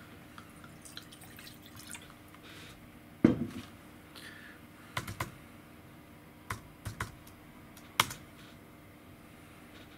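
A few scattered clicks and knocks, small hard objects handled on a table. The loudest is a knock about three seconds in; sharp single and paired clicks follow around the middle and near the eight-second mark.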